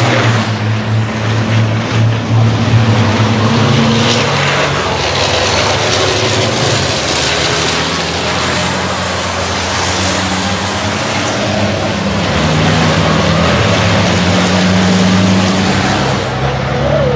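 Racing trucks' turbo-diesel engines running hard on a race circuit: a loud steady mechanical drone under a dense hiss, with the engine note changing pitch a few times as the trucks pass.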